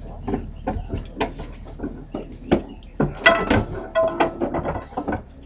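Irregular knocks, clicks and creaks from the processional float the camera is fixed to as it is carried and sways, with a brief pitched sound about three seconds in.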